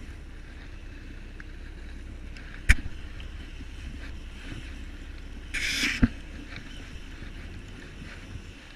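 Steady low rumble aboard a head boat at sea. A sharp knock comes about a third of the way in, and a short hiss ending in another knock comes a little past the middle.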